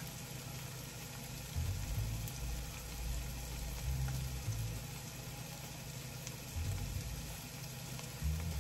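Food sizzling in a frying pan, a steady hiss, with a few dull low bumps.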